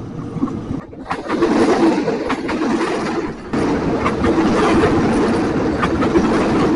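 KRL Commuter Line electric train (KfW i9000 set) passing close by: a steady rumble of wheels on rail with repeated sharp clicks from the wheels over the rail. It grows louder about a second in and again about three and a half seconds in as the cars reach the camera.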